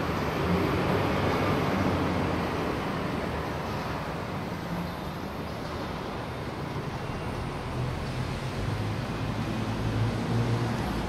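Butane jet-flame torch lighter hissing steadily while a cigar is lit, loudest in the first few seconds, over a low background rumble.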